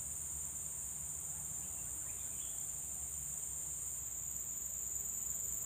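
Steady, shrill drone of an insect chorus in tropical forest, continuous throughout and shifting slightly in pitch about four seconds in, over a low steady rumble.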